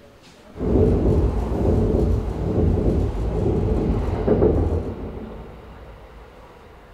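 Keikyu Line train passing on the elevated track overhead: a deep rumble that comes in suddenly about half a second in, holds for about four seconds and then fades away.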